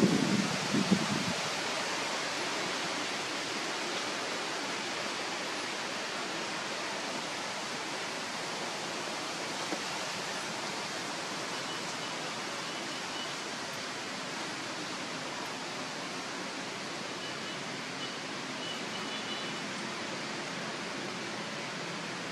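Steady, even hiss of outdoor background noise, with a low rumble that fades out in the first second or so. Faint short high tones come through around the middle and again later on.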